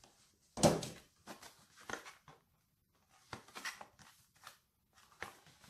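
Paper and cardboard packaging being handled: a sharp rustle-knock about half a second in, then a run of short rustles and taps as a small cardboard box is lifted out of a paper gift bag.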